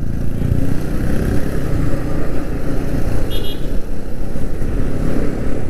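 Yamaha MT-15's 155 cc single-cylinder engine running as the motorcycle rides through city traffic and picks up speed, under a steady low rumble. A brief high tone sounds about three and a half seconds in.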